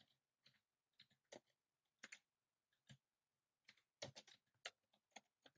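Faint keystrokes on a computer keyboard: irregular taps with a quick run of several about four seconds in.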